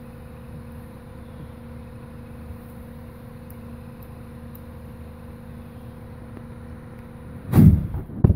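Gasoline poured into a rat's nest ignites in a loud, deep blast about seven and a half seconds in, with a second short bang just after. Before it there is a steady low hum.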